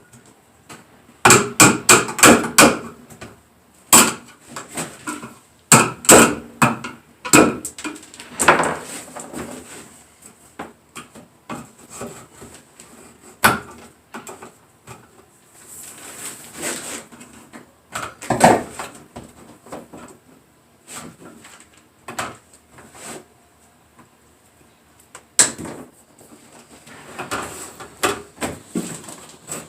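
Knocking and clattering on wooden framing while electrical cable is handled and run through drilled studs: clusters of quick sharp knocks, the loudest run about a second in, with quieter handling noise between.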